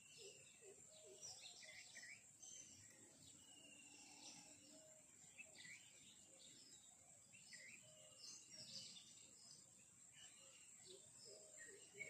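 Faint outdoor ambience with scattered bird chirps and short calls, over a steady high-pitched hiss.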